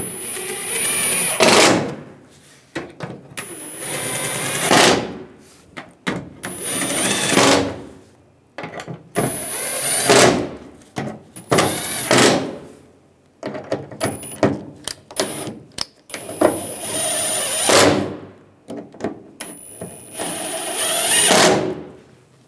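Cordless impact driver with a T30 Torx socket driving tailgate panel screws down one after another: about eight short runs of a high motor whine, each ending louder as the screw seats and is tightened.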